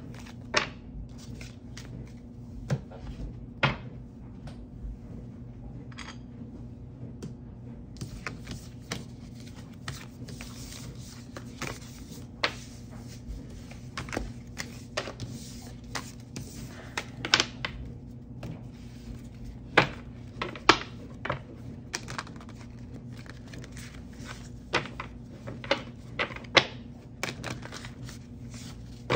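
A deck of oracle cards being shuffled and handled, with irregular clicks and taps throughout and a denser run of riffling in the middle, over a steady low hum.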